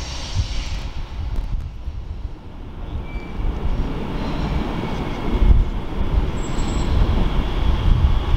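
Rumble of an electric multiple unit train approaching the station, growing louder over the last few seconds, with a few faint high wheel squeals.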